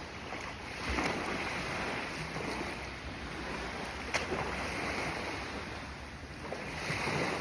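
Sea water splashing and lapping, with louder surges about a second in and near the end and a single sharp tick midway, over wind on the microphone.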